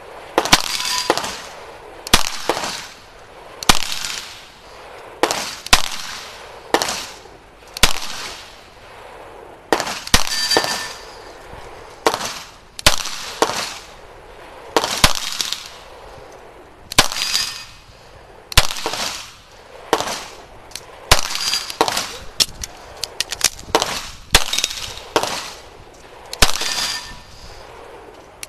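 CZ Shadow 2 9mm pistol fired through an IPSC stage: single shots and quick pairs every second or two throughout. Several shots are followed by a brief metallic ring.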